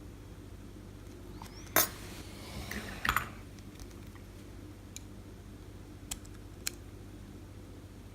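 Small sharp clicks and a brief scrape of metal parts as the tailpiece of an old Ruko oval padlock is worked loose by hand; one louder click about two seconds in, then a few light ticks.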